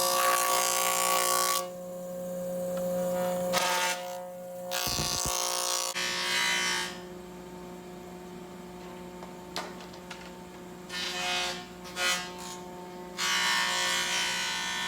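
Thickness planer running with a steady motor hum, with loud bursts of rushing cutting noise several times as glued-up wooden blanks are fed through and planed flat.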